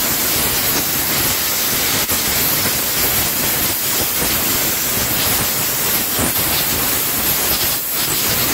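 Compressed-air blow gun on a yellow air line, giving a loud, steady hiss of air as it blows dirt out at the rear axle.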